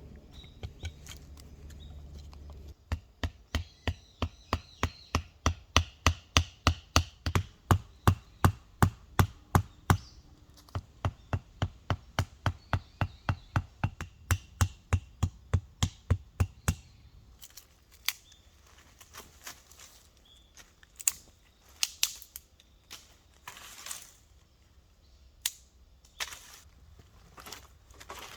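Wood being struck hard and fast, about three blows a second for some fourteen seconds, then a scatter of irregular cracks and snaps of wood.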